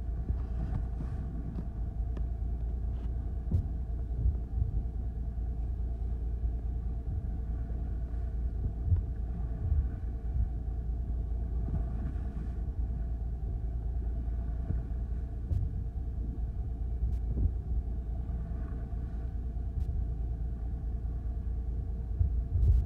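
Fishing boat's engine running with a steady low rumble, with a few short knocks over it.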